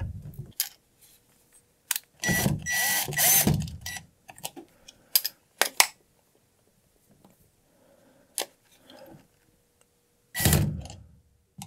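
Plastic canister of an Axiom NeutraPal condensate neutralizer being twisted by hand back onto its wall-mount head: plastic scraping and rubbing in two longer stretches, with scattered sharp clicks.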